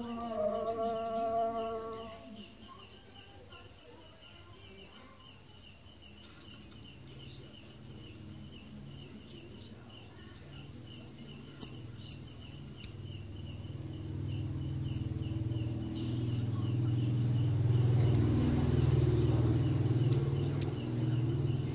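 Insects chirping steadily, one high pulsing trill over a thinner, higher steady note. A singing voice fades out in the first two seconds, and a low rumble swells from about seven seconds in, loudest near the end.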